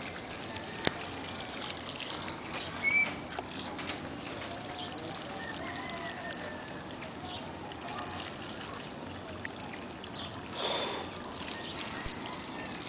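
Water being poured onto the embers of a bonfire to put it out, trickling steadily, with a sharp click about a second in and brief louder bursts about three seconds in and near the end.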